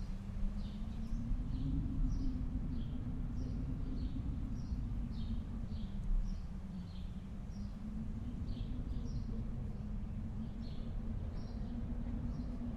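Howling wind: a low, steady rumble with a moaning tone that slowly rises and falls. Short high chirps repeat about twice a second over it.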